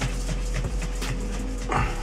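Hands rolling and pressing a ball of bread dough on a floured stone counter, with faint soft knocks, over steady background music. A short, brighter call-like sound comes near the end.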